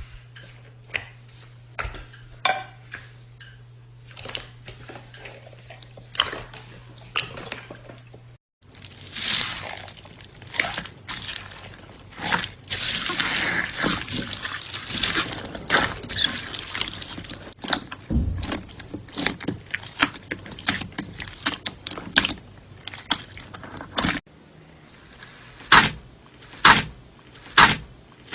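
Slime being squeezed and worked by hand: many short wet squelches, clicks and sticky pops. They come thickest and most continuous from about a third of the way in to near the end, then thin out to a few separate loud pops.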